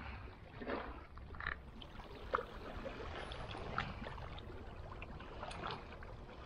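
Small sea waves lapping and splashing against shoreline rocks, with a few short splashes standing out over a low steady rumble.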